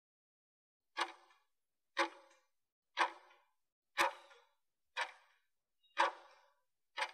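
Clock-tick sound effect of an interval timer, seven ticks at one per second starting about a second in, counting down the last seconds of the work interval.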